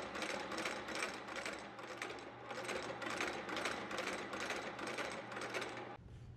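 A shoe-stitching machine running in an even rhythm of about three strokes a second, stopping suddenly near the end and leaving a low workshop hum.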